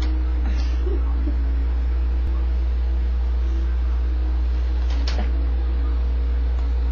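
A steady, loud low electrical hum with a faint higher steady tone over it, and faint brief sounds about half a second and five seconds in.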